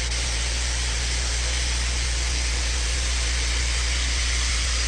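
Spray gun hissing steadily as it sprays epoxy primer, with a steady low hum underneath.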